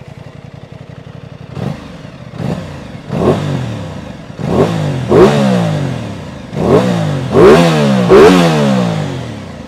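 Aprilia Tuono 660 Factory's 660 cc parallel-twin engine idling just after start-up, blipped about eight times with the throttle. Each blip rises sharply and falls back to idle, and the loudest come in the second half. It has a mean-sounding note.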